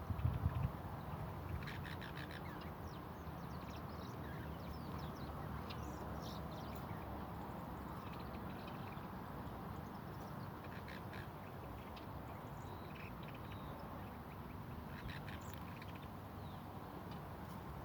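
Garden birds calling, with short, scattered chirps and calls throughout over a steady low background noise. There are a few low thumps in the first second.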